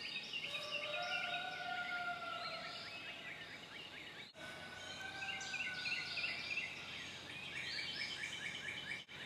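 Birds chirping and trilling in woodland, many quick high calls overlapping, with a longer held lower note in each half. There is a brief break about four seconds in.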